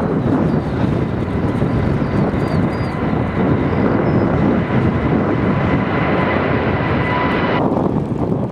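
Jet airliner engines running: a loud, steady rumble with a thin high whine over it. The whine and upper hiss cut off suddenly near the end.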